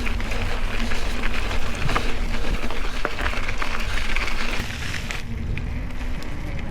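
Mountain bike rolling over a gravel dirt road: tyre noise with many small stone and rattle clicks over a steady low rumble. The higher hiss drops away about five seconds in.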